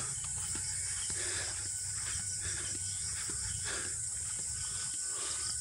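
Steady high-pitched chorus of insects, with a low rumble of wind on the microphone and faint scattered ticks of footsteps from walking.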